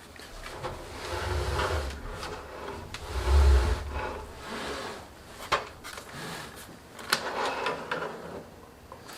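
A computer case being handled and rocked back down: rubbing and scraping, two dull low thumps in the first four seconds, and a few sharp clicks later.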